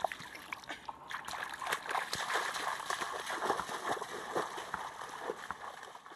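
Feet splashing through shallow muddy water as a person wades quickly, a dense run of irregular splashes that cuts off suddenly at the end.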